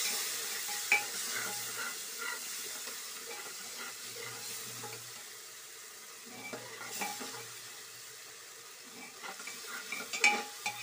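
Tomato and onion masala sizzling in an open aluminium pressure cooker while a perforated ladle stirs it, scraping and knocking against the metal pot. The sizzle eases off through the middle, and the ladle gives a sharp clink about a second in and again near the end.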